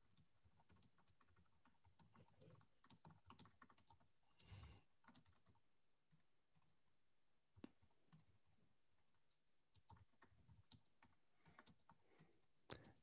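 Near silence with faint, scattered computer-keyboard keystrokes.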